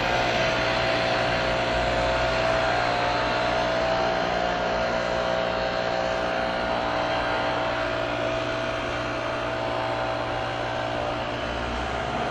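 Class 390 Pendolino electric train running at speed as it recedes: a steady hum with a few held tones that slowly dies away, its higher tone fading out about halfway through.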